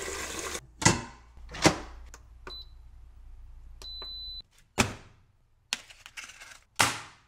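Kitchen work sounds: several sharp knocks and clunks of cookware and utensils. A kitchen appliance gives a short electronic beep about two and a half seconds in and a longer beep near four seconds, and a low hum stops right after it.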